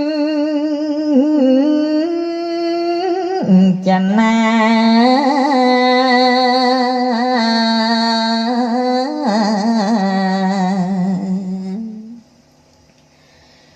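A solo voice singing slow, long-held notes with vibrato, sliding between pitches in a chant-like melody. It stops about twelve seconds in, leaving only faint background.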